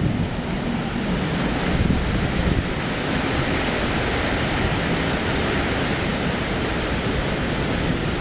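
Typhoon winds making a steady rushing noise, with gusts buffeting the microphone in low rumbles.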